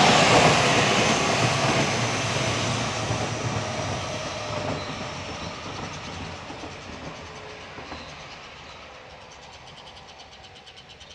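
JR Central 313-series electric train pulling away, its running noise fading steadily as it recedes.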